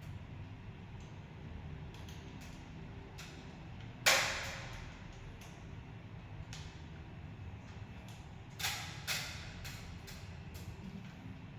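Hard knocks and clicks of something being handled, over a low steady hum. The loudest is a single sharp knock that rings briefly about a third of the way in; two smaller knocks follow about half a second apart later on.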